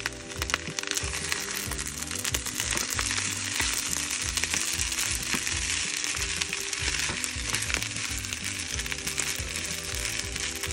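Fried rice sizzling steadily in a nonstick skillet as it is stirred and tossed with a wooden spatula, with scattered scraping clicks from the spatula against the pan.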